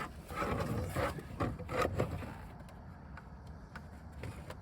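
Hard plastic interior trim panel being handled and fitted under a car's dashboard: a series of short knocks, clicks and rustles in the first two seconds, then fainter handling noises.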